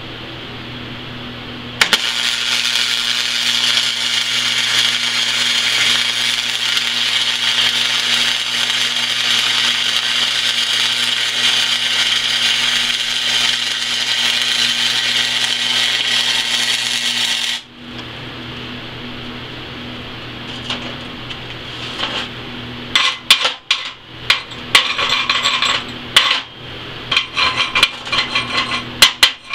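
A flux-cored arc-welding arc (NR-211 wire) on steel plate crackles steadily for about sixteen seconds as the final stringer bead is run, then cuts off. The welding machine's hum sits under it before and after. In the last several seconds a chipping hammer strikes the bead quickly and unevenly, knocking off the slag.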